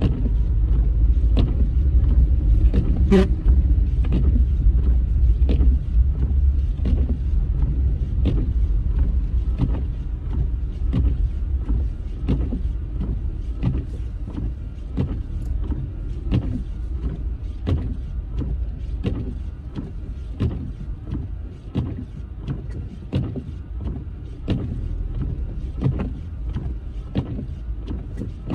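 Car cabin noise while driving slowly on a snowy road: a steady low rumble of engine and tyres, with frequent faint ticks and knocks. A short sharp sound comes about three seconds in, and the rumble eases after about ten seconds.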